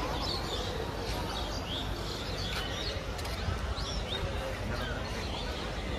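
Small birds chirping, many short high chirps throughout, over a steady low outdoor rumble.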